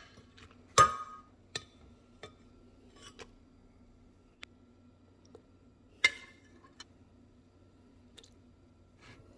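A kitchen utensil and soft cooked vegetables being dropped into a glass blender jar: a string of separate clinks and taps on the glass, the loudest about a second in and again about six seconds in, over a faint steady hum.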